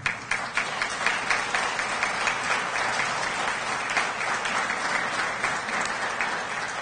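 Audience applauding, many hands clapping at once, easing off slightly near the end.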